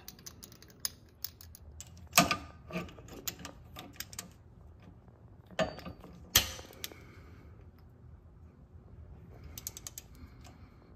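Ratchet wrench and socket clicking and clinking as a new spark plug is threaded in and snugged up in a Honda Pioneer 700-4's cylinder head. There are sharp metal knocks about two seconds and about six seconds in.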